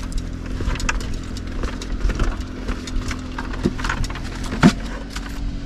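Footsteps on a paved path with irregular clacks and knocks, one louder knock late on, over a steady low hum.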